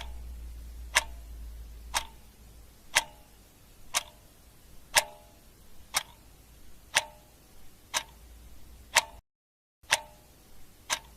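Clock ticking sound effect, one tick a second, counting down the search time. Over a low steady hum, with a short dropout to silence about nine seconds in.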